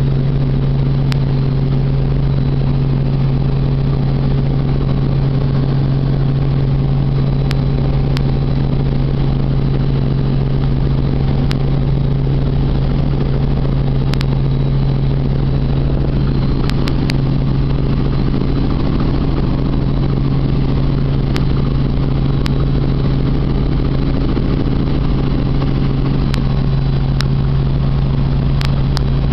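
Helicopter cabin noise in level flight: a loud, steady drone of engine and rotors with a strong low hum, heard from inside the cabin, with a few faint clicks.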